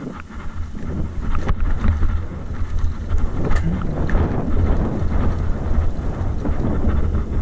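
Wind buffeting the microphone over the rumble of mountain bike tyres rolling fast down a dirt and gravel trail, with scattered rattles and knocks from the bike over stones.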